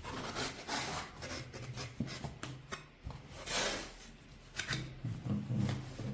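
Keyboard packaging being opened by hand: irregular rubbing and scraping, with a longer, louder rasp about three and a half seconds in and a few light knocks.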